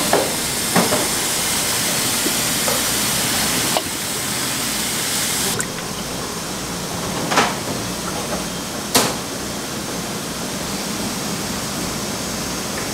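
Water rushing with a hiss that cuts off suddenly about five and a half seconds in, over kitchen noise, with a few sharp knocks scattered through.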